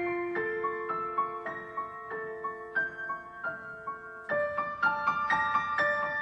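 Background music: a piano melody of single notes over held low notes, moving to a new chord about four seconds in.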